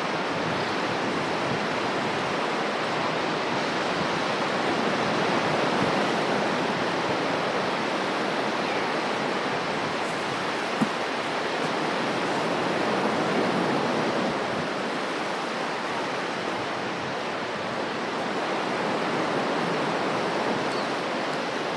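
Steady rush of floodwater, an even roar of moving water with one brief knock about halfway through.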